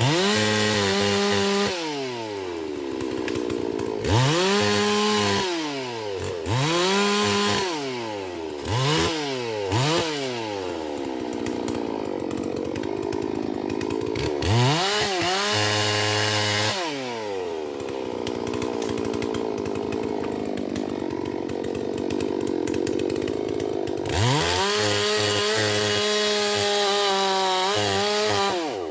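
Holzfforma G444 two-stroke chainsaw, a Stihl MS440 clone, revved up and down repeatedly and dropping back to idle in between. It gives several quick throttle blips and a few longer holds at high revs, the longest near the end.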